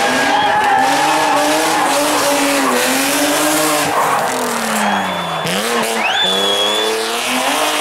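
A BMW E30 325 rally car's straight-six engine revs hard through a tight hairpin, its pitch rising and falling, dropping around the middle and climbing again as it accelerates away. Short high tyre squeals come twice in the second half.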